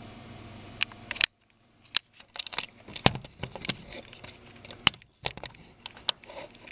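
Irregular clicks and taps of a computer keyboard and mouse, coming in quick clusters with short pauses between them.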